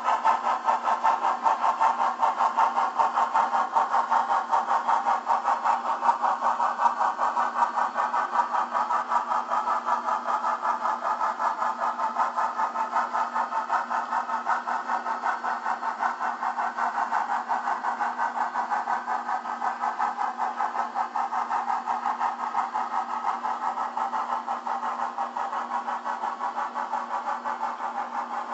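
On30-scale model train running along the track: a steady whir from its small motor and gears with fast, even clicking, the pitch sinking slightly and the level easing off over the stretch.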